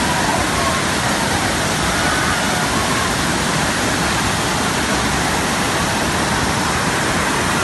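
Majhar Kund waterfall: a steady, loud rush of falling water with no let-up.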